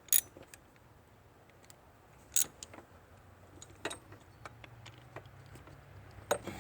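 Scattered light metallic clicks and clinks of hand tools being handled, with a few sharper knocks.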